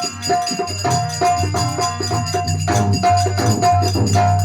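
Instrumental folk music: a melody repeats a short, high held note over a steady low drone, with jingling percussion keeping a brisk beat.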